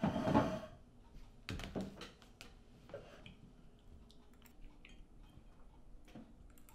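A dinner plate set down on a wooden table, then scattered clicks of forks against plates while people eat.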